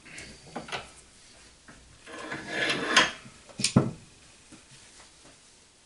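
Hand tools being handled and set down on a wooden workbench: a few light clicks, a rustle of handling about two to three seconds in, then two sharp knocks close together.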